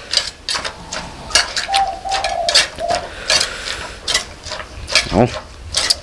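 Pestle and spoon knocking irregularly in a mortar, two to three times a second, as a lotus-stem som tam with prawns and squid is pounded and tossed to mix. Birds call in the background, with one held whistle about two seconds in.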